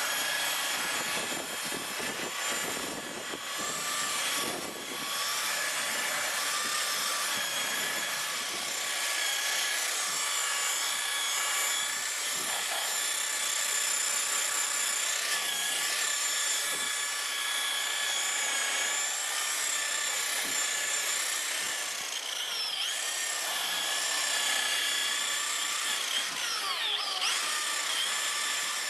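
Electric car buffer (polisher) running at low speed, a steady high motor whine with the pad rubbing on the part being polished. The pitch sweeps down twice in the second half.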